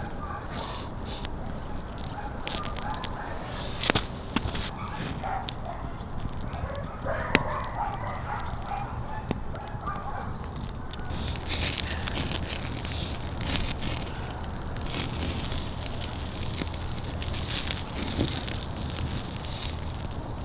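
Campfire crackling, with scattered sharp pops, the loudest about four and seven seconds in. Fowl call now and then in the background.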